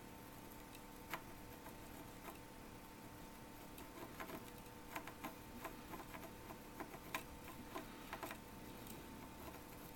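Faint, irregular small clicks and taps of hand work cleaning a circuit board, coming thicker in the second half, over a faint steady hum.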